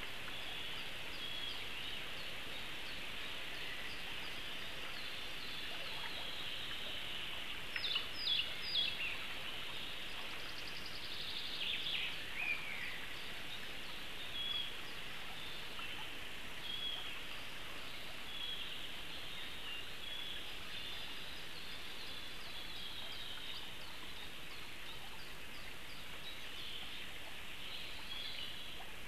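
Small forest songbirds singing over a steady background hiss: short high whistled notes scattered throughout, three loud quick down-slurred notes about eight seconds in, and a falling run of notes about four seconds later.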